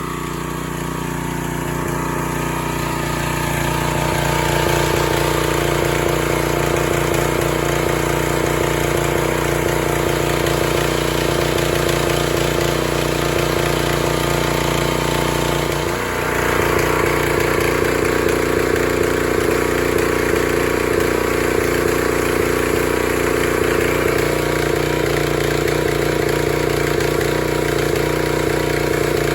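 Gas-engine pressure washer running steadily, with the hiss of the water jet. About halfway through the sound dips briefly, then comes back fuller.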